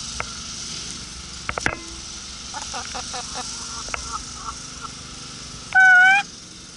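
Young chickens: a few sharp pecking taps about one and a half seconds in, soft short clucks and chirps, then one loud, short, steady squawk near the end.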